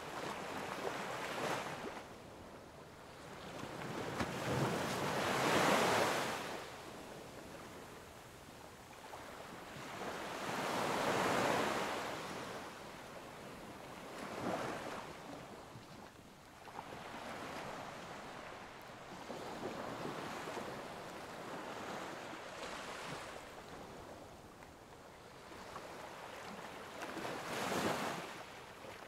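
Sea waves washing in, a rushing noise that swells and fades every few seconds, with the strongest surges about five and eleven seconds in and again near the end.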